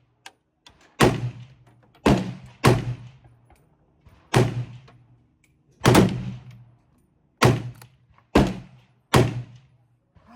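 Rifle shots at a shooting range: about eight sharp reports at irregular intervals, some less than a second apart, each trailing off in a short echo.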